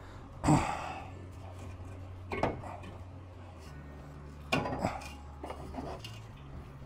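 Scattered sharp metallic clinks and knocks of a hand tool against the car's exhaust hangers and pipe, about half a dozen in all, with a steady low hum underneath.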